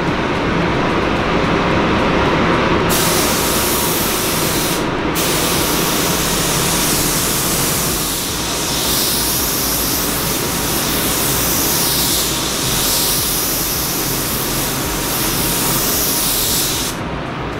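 Paint spray gun hissing as it lays down a wet second coat of clear coat. It starts about three seconds in, is let off for a moment a couple of seconds later, then runs steadily until it cuts off near the end.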